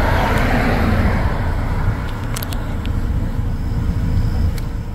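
Road traffic passing on a highway: the tyre and engine noise of cars going by, swelling and fading.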